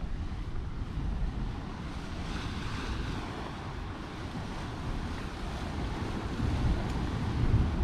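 Wind buffeting the microphone with a low rumble, over a steady wash of sea surf that swells briefly about two seconds in.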